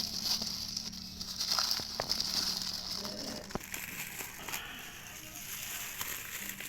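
Packaging being opened by hand: irregular crinkling and rustling with scattered clicks and ticks.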